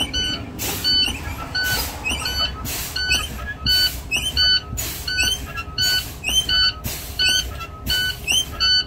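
Truck's low air warning buzzer beeping about once a second while the air brakes are fanned. A short hiss of exhausting air comes with each pump of the brake pedal, about once a second, as the air pressure is drawn down toward the point where the spring brakes set.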